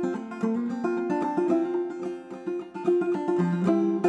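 Banjo played clawhammer style: a quick, steady stream of plucked notes ringing over one another.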